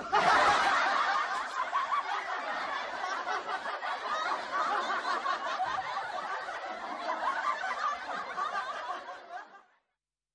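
Laughter, snickering and chuckling, that starts abruptly and fades away about nine seconds in.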